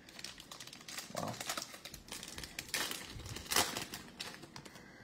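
A football trading-card pack's foil wrapper crinkling and crackling in the hands as it is torn open, loudest just past the middle.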